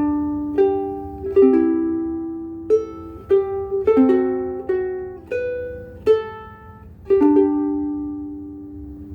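Famous/Nakanishi FN-180 all-solid-mahogany soprano ukulele played in chords and single notes, each struck sound ringing and fading, the last chord left to ring out for about two seconds. Its Uke Logic Pink strings are worn out, with deep notches.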